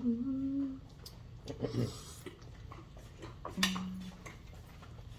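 Short hummed "mm" sounds from a person eating, with a few light clicks of cutlery on dishes between them.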